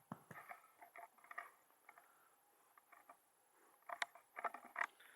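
Faint soft scuffling, rustling and clicks close to the microphone, in two spells, the second about four seconds in and louder, from a Newfypoo puppy moving about near it.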